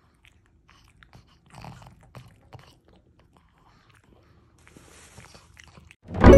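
Faint, scattered wet clicks and smacks from a resting pug's mouth. Near the end, loud jingle music starts abruptly.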